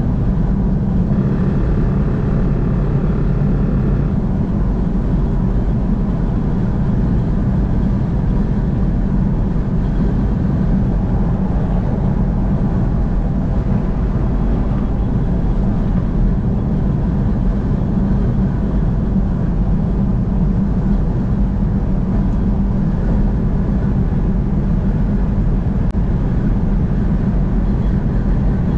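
Steady road and engine noise of a car driving at highway speed. A faint pitched hum joins in from about one to four seconds in.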